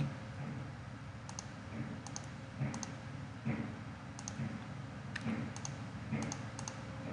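Computer mouse clicking: a handful of light clicks, mostly in quick pairs, scattered through the few seconds over low room noise.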